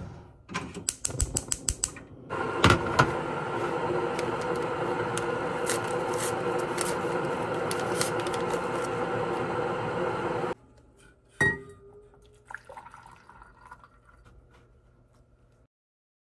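Gas stove igniter clicking rapidly about eight times as the burner under a stovetop kettle is lit. The burner then runs with a steady loud rush under the kettle, with tea packet rustles over it, and cuts off suddenly about ten seconds in. A single knock follows.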